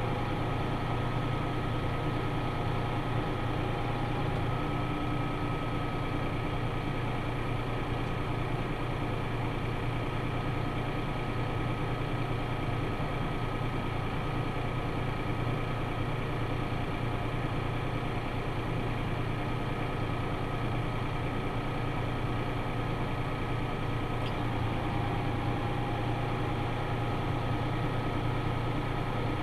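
Tractor engine running steadily, with a faint steady whine above it.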